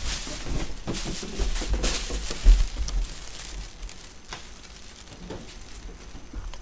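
Handling noise from a handheld camcorder being carried about: low bumps and rustling crinkles, busiest in the first three seconds, with one sharp knock about two and a half seconds in, then quieter rustling.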